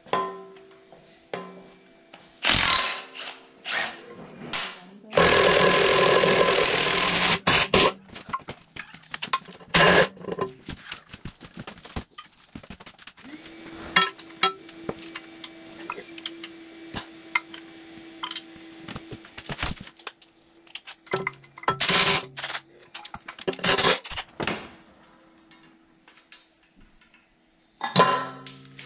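Hand work on a compact tractor's transmission: scattered metal clanks and knocks of tools and parts, with a cordless drill-driver running for about two seconds a few seconds in and a few shorter tool bursts later.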